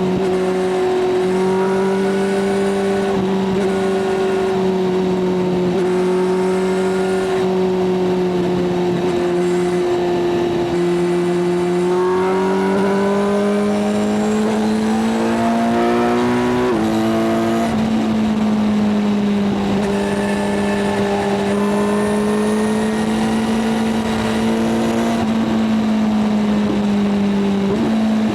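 Kawasaki inline-four motorcycle engines, a Z900 riding with a ZX-6R, running at a steady highway cruise under wind and road noise. Just past the middle the engine note climbs for a few seconds, steps up sharply, then holds steady again.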